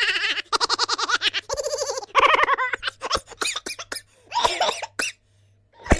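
Silly, cartoonish laughing sound effect: a voice laughing in quick pulsing bursts, several in a row with short breaks between them.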